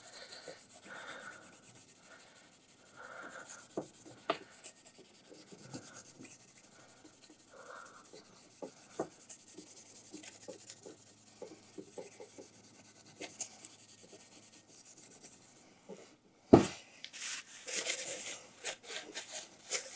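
A Scotch-Brite pad scrubbing the intake face of an aluminum cylinder head wet with engine degreaser: faint, steady rubbing and scratching with small ticks. A single sharp click about three-quarters through, then a louder rustle of a paper towel wiping the surface near the end.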